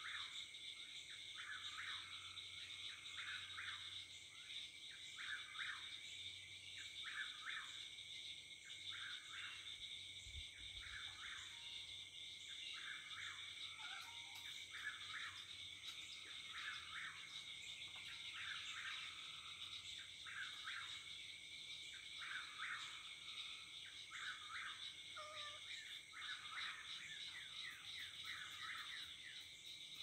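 Dusk chorus of frogs and insects keeping up a steady high drone, while a whip-poor-will repeats its short call over and over.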